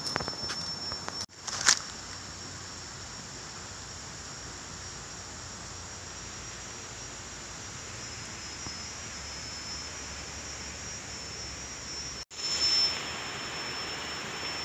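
Steady, high-pitched insect drone, a single tone held unchanging over a soft even hiss of forest ambience. A short sharp sound stands out near two seconds in, and the sound breaks off for an instant twice.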